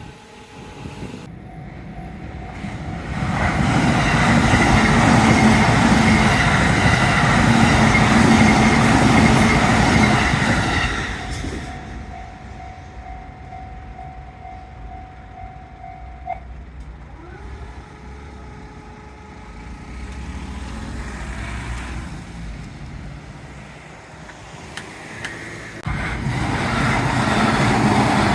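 A train passing over a railway level crossing, loudest from about 4 to 11 seconds in. A steady tone follows and cuts off suddenly about 16 seconds in, and another loud vehicle pass starts near the end.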